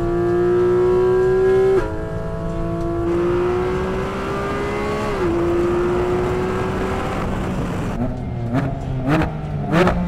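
Porsche 718 Cayman GT4 RS's naturally aspirated flat-six accelerating hard at high revs, its pitch climbing through the gears with quick upshifts about two seconds and five seconds in. Near the end, off the throttle, three sharp rev blips as it shifts down.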